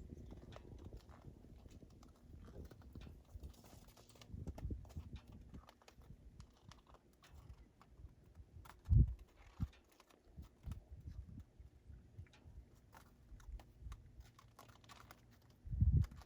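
Donkeys shifting about, making scattered light clicks and knocks, with two brief low thumps, one about halfway through and one near the end.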